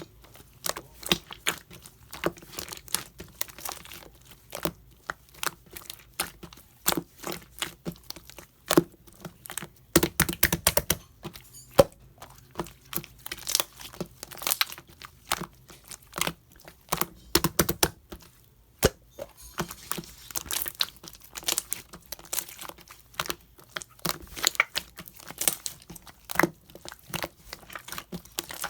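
Sky-blue clear slime being played with, making a continuous stream of irregular sharp sticky clicks and pops.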